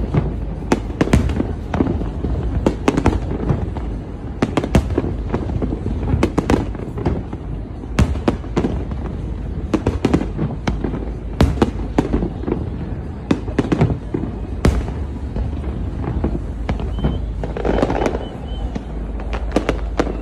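Aerial fireworks display: shells bursting in quick, irregular succession, dozens of sharp bangs, at times several a second, over a steady low background.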